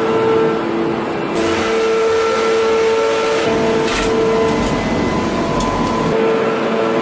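Hydraulic steel forging press running with a steady machine hum. A few short knocks and a low rumble come around four to six seconds in.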